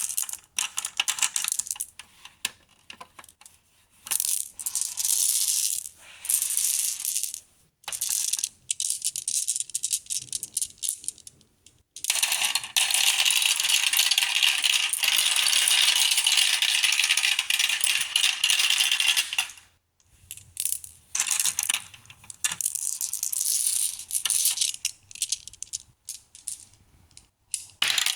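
Marbles rolling and clattering along a marble run track: short bursts of rapid clicking and rattling with brief gaps, and one long unbroken stretch of dense rattling about halfway through.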